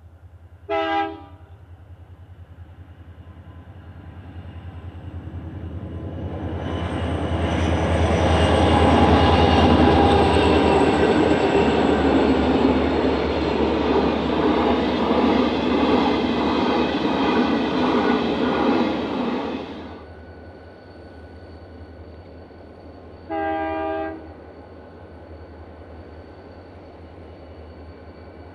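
A short blast on a diesel locomotive's multi-note horn, then a freight train of QR National diesel locomotives and grain hopper wagons approaches and passes, the engines and wheels growing to a loud rumble with a rhythmic clickety-clack of wagon wheels over rail joints, before the sound cuts off suddenly. A second short horn blast follows near the end.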